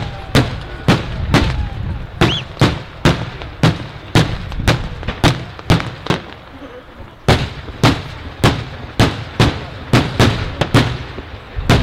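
Daytime fireworks display: a steady run of loud bangs at about two a second, with a pause of about a second just past the middle.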